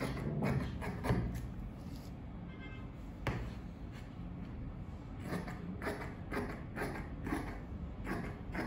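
Tailor's shears snipping through cotton-viscose fabric on a cutting table: a few snips, a pause in the middle, then a quicker run of snips.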